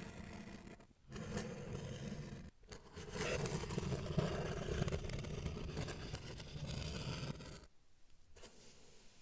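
Scraping and rustling from objects being handled, in several stretches with short pauses, loudest in the middle and dropping away near the end.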